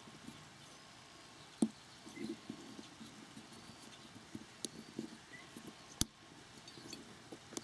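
Steel parts of an M1 carbine trigger housing being worked by hand: light clicking and scraping as the sear is pushed against its spring to line it up with the pin, with two sharp metallic clicks, the louder about six seconds in.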